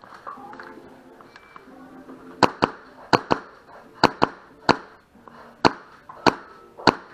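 Gas blowback airsoft gun firing at an electronic target: about nine sharp cracks from a couple of seconds in, several in quick pairs.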